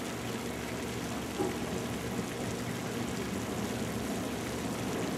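Steady engine hum under an even rushing noise, with a faint knock about a second and a half in.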